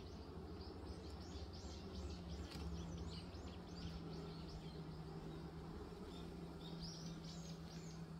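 Honeybees humming steadily around an open hive, the hum settling in about two seconds in, with small birds chirping repeatedly in the background.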